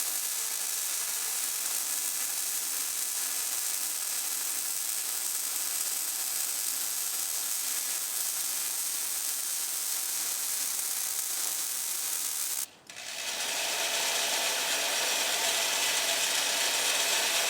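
MIG welding arc on mild steel (Millermatic 211, .030 wire, 75/25 argon–CO2 shielding gas) giving a steady crackling hiss. It cuts out briefly about thirteen seconds in, then strikes up again.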